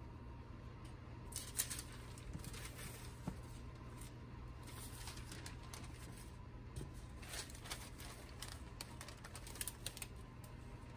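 Faint rustling and crinkling of parchment paper and light taps as dough and a cane proofing basket are handled by hand, in scattered short bursts over a steady low hum.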